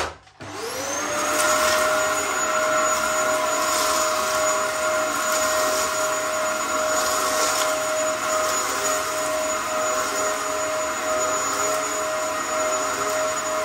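Dyson DC07 upright vacuum cleaner switched on with a sharp click, its motor spinning up within about a second to a steady high whine and roar as it sucks dry soil off a carpet, with brief rattles now and then. The machine is being tested for a loss of suction.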